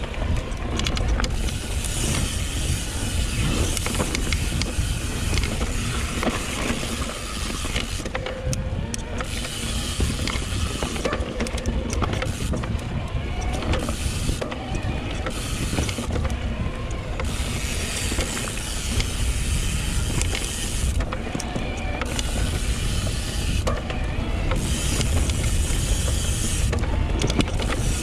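Trail noise from a YT Decoy electric mountain bike being ridden along dirt singletrack: tyres rolling over the ground, the bike clattering over bumps, and rushing air on the microphone.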